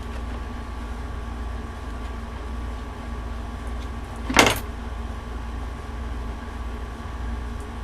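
Steady low background hum, with a single short scraping noise about halfway through.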